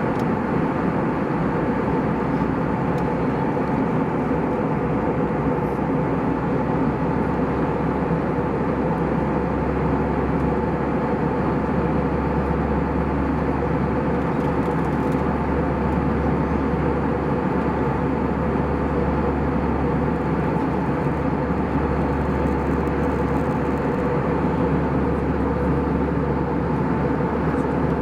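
Airbus A320 airliner cabin noise in flight: a steady drone of jet engines and airflow, with a low hum and a few steady tones.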